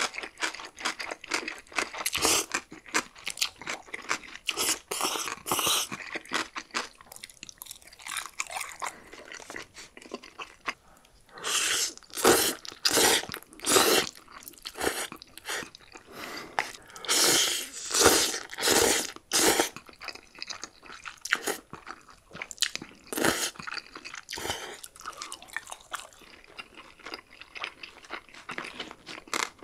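Close-miked eating sounds: noodles slurped in several long draws between stretches of chewing.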